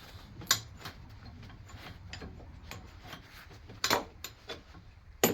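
Scattered metal clicks and knocks with light scraping as a stuck, heated part of a cast-iron bench vise is worked loose by hand; a sharper knock comes about half a second in, and louder ones near four seconds and just before the end.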